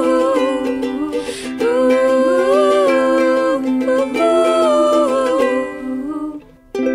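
Ukulele playing the closing bars of a song, with a woman's wordless singing gliding over the chords. Near the end the playing drops out briefly and a final strummed chord rings out and fades.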